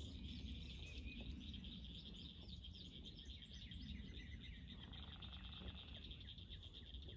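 Faint frog chorus: a steady, high-pitched trilling of rapid pulses, over a low rumble.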